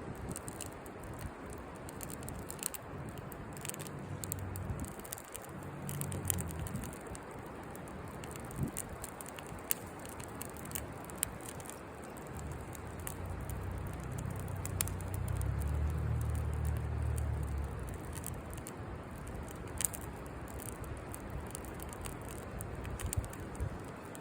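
Wood campfire crackling, with irregular sharp pops and snaps over a steady hiss. A low rumble swells for a few seconds past the middle.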